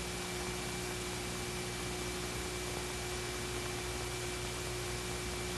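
Steady hiss with a faint constant hum, the bare noise floor of an old film soundtrack with no sound on it.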